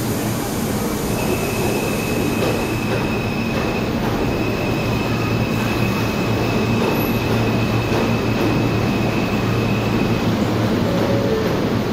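An R179 subway train standing at the platform with its doors open, its ventilation and electrical equipment giving a steady hum. A thin high whine sounds over it for most of the time and stops near the end.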